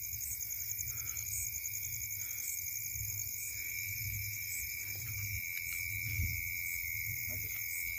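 Night insect chorus, crickets trilling in an even, high drone, over a low, uneven rumble of footsteps and camera handling.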